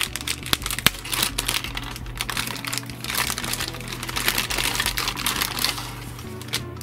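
A clear plastic bag crinkling and rustling as it is handled and a metal laptop drive caddy is slid out of it, with irregular crackles and small clicks throughout.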